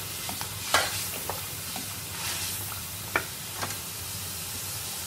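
Mutton pieces and ginger-garlic paste sizzling in hot oil in an aluminium pressure cooker as they are browned. A spoon stirs them, with a few sharp scrapes and knocks against the pan; the loudest comes about three-quarters of a second in.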